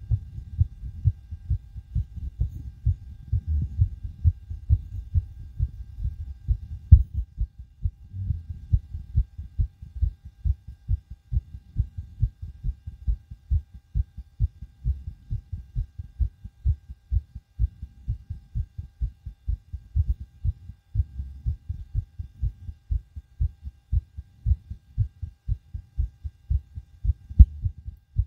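A person's heartbeat picked up through a homemade stethoscope microphone held to the chest: fast, hard, regular thumping, the heart working hard after exertion. A louder knock comes about seven seconds in and again near the end.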